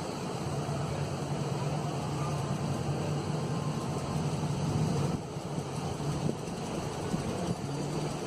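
Steady rushing noise of a thunderstorm, wind and rain, over a low rumble; the level drops suddenly about five seconds in.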